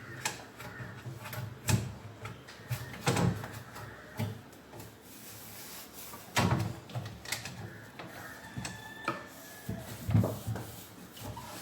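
A damp cloth rubbing over the outside of a refrigerator, with irregular knocks and bumps against the fridge body and door about once every one to two seconds.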